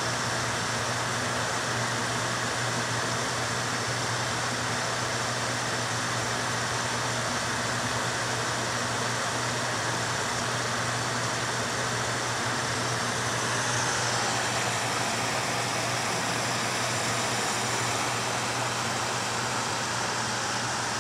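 Steady whir of a fan blowing air through a foil dryer duct, with a constant low hum underneath.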